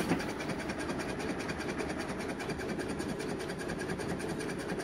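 Chipboard baffle panel and wall rattling in a rapid, even clatter as a rotary subwoofer is driven with a 5 Hz sine wave; the panel has come partly away from the wall and is shaking against it.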